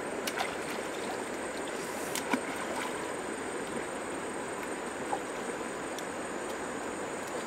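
Shallow stream water running steadily, with a few small splashes and ticks as hands move through the water and weeds.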